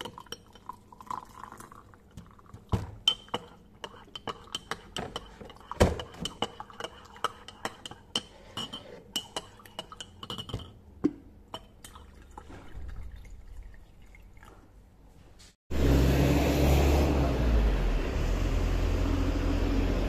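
Glassware and dishes clinking and knocking, with liquid being poured and a faint steady high ring under it. About three-quarters of the way through the sound cuts abruptly to a loud, steady rumbling noise.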